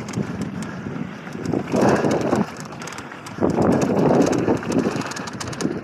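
Mountain bike rattling and its tyres rumbling over a rough dirt trail, with wind buffeting the microphone. The noise comes in surges, loudest about two seconds in and again from the middle on, with quick clatters of the bike over bumps.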